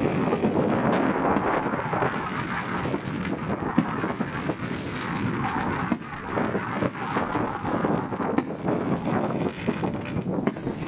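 Aerial fireworks going off: a steady din of bursts and crackle, with four sharp cracks spread through.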